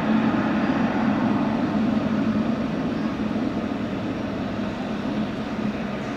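Boeing 777F freighter's GE90 turbofan engines running at taxi power as the jet taxis, a steady engine noise that slowly grows fainter.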